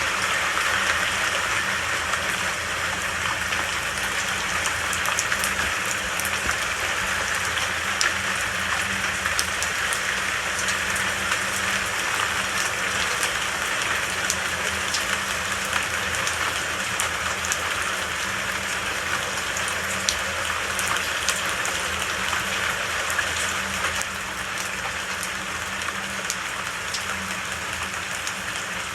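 Steady rain falling, a dense even hiss with scattered individual drops ticking through it; it eases slightly in level near the end.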